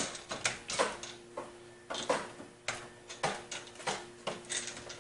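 Screwdriver turning a screw into the metal expansion-slot bracket of a PC case, fastening a graphics card: a string of short, irregular clicks and scrapes about every half second.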